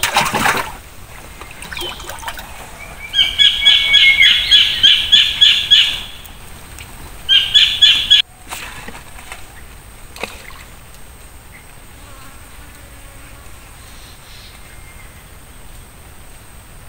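A loud, high animal call pulsing about four times a second, running for about three seconds, then again briefly before it cuts off abruptly; a short noisy rush at the very start.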